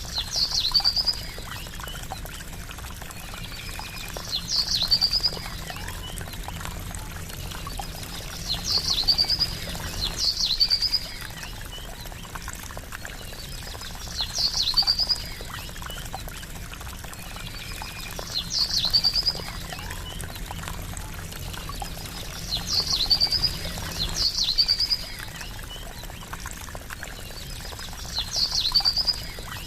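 Steady trickle of running water, with a bird's short high call repeating about every four to five seconds, twice in quick succession now and then.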